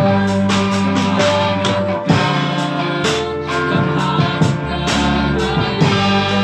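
A man and a woman singing a duet through microphones over amplified accompaniment with guitar and a steady beat.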